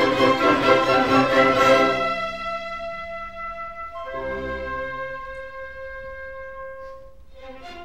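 Orchestral film score with strings and brass: full and loud for about two seconds, then a quieter passage of long held notes that fades away, with a new phrase starting just before the end.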